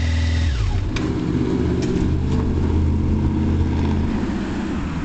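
The 1985 Yamaha FZ750's cold inline-four, on full choke, is running at a fast idle. About half a second in, its steady note and high whine fall away as it is accidentally switched off, and a lower, uneven engine sound carries on. A few sharp clicks of the handlebar switches come in the first half.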